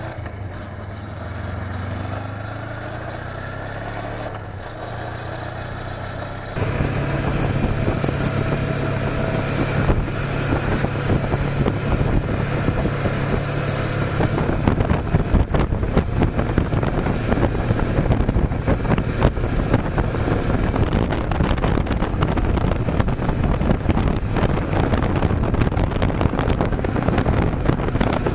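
Suzuki V-Strom 250 parallel-twin engine on the move, its pitch rising repeatedly as it pulls through the gears. About six seconds in it cuts abruptly to a louder stretch where wind buffeting on the microphone mostly covers a steady engine drone.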